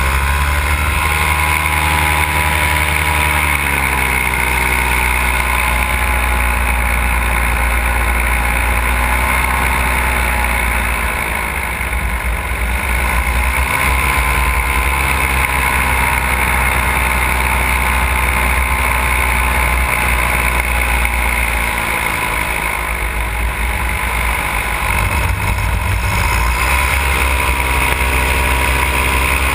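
Paramotor's Simonini two-stroke engine and propeller running under power in flight, with the throttle eased back briefly about twelve seconds in and again around twenty-two seconds, the pitch dropping and then rising again.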